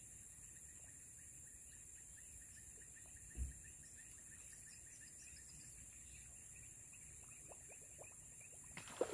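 Faint outdoor ambience with a steady high-pitched drone, one low thump about three and a half seconds in, and a sharp click near the end.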